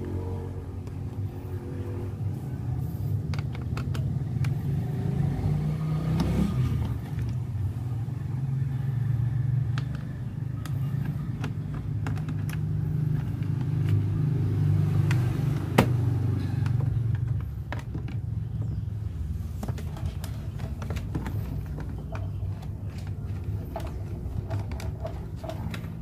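A motor vehicle engine running steadily with a low drone that swells through the middle and eases off in the last third, with scattered small clicks and knocks from hands working cable and plastic trim under the dashboard.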